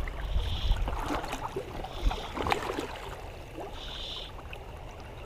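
Creek water gurgling with a few splashes over a low rumble on the microphone. Three short high buzzy calls, each about half a second long, come in near the start, about two seconds in, and about four seconds in.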